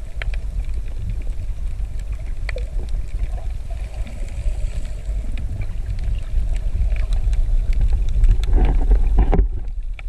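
Underwater sound picked up by a snorkeler's camera: a steady low rumble of water moving around the camera, with scattered sharp clicks and crackles. Near the end comes a short burst of louder splashing.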